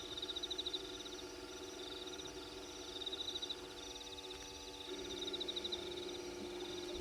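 Night chorus of frogs and insects at a waterhole: a rapid high trill in bursts of about a second, repeating every second or two, over steady lower calls, with a lower pulsing trill joining about five seconds in.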